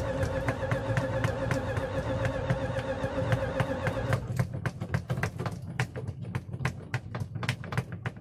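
Gasoline engine running roughly on diesel fuel, with a steady hum and regular sharp beats about five a second. About four seconds in, the steady tone drops away and the beats turn uneven.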